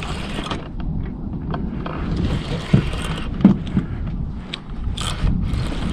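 A spinning fishing reel being worked against a heavy fish on a bent rod, in stretches of whirring hiss with a few sharp clicks, over wind rumbling on the microphone.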